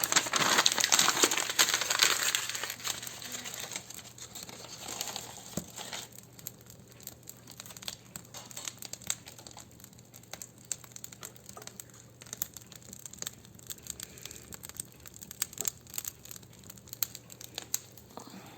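Dry leaves crumpled and rustled by hand, loud for the first few seconds and again briefly around five seconds in, as they are fed to a wood fire in the fireplace. After that the fire crackles sparsely, with scattered small clicks.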